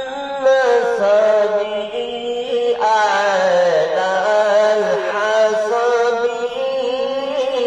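A man singing a qasida, an Islamic devotional ode, solo and unaccompanied into a handheld karaoke microphone, in long held notes that waver and bend in pitch.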